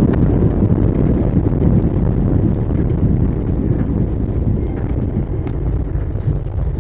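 Airliner cabin noise during landing: a heavy, steady low rumble of engines and airflow, with a few faint clicks or rattles, easing slightly toward the end.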